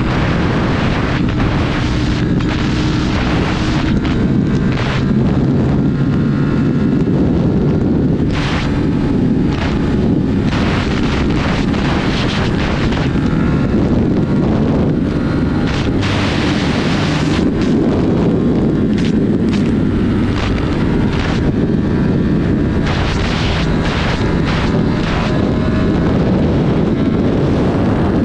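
Sport motorcycle running at speed, its engine note shifting in pitch now and then under heavy wind rushing over the microphone.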